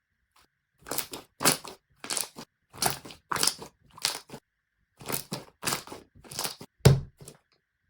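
Slime being squeezed and pressed by hand close to the microphone, crackling and crunching in about a dozen short bursts roughly half a second apart, the loudest near the end.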